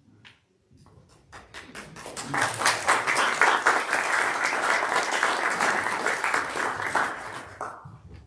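Congregation applauding, many hands clapping together. It starts about a second in, builds to a full, steady round within another second, then dies away near the end.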